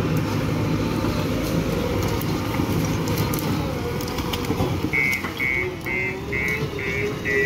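JCB 3DX backhoe loader's diesel engine working hard as the machine pushes and levels soil. From about five seconds in, its reversing alarm beeps steadily, about two and a half beeps a second, as the machine backs up.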